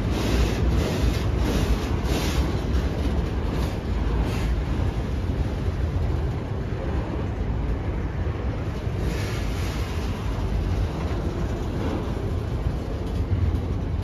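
Freight train of autorack cars rolling past at close range: a steady heavy rumble of steel wheels on rail. There is a run of regular wheel clacks in the first few seconds, and a few more about ten seconds in.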